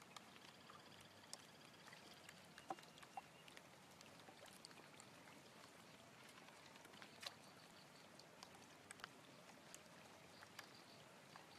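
Near silence: faint water dripping and splashing with scattered small clicks, from a fishing net being handled at the side of a wooden boat.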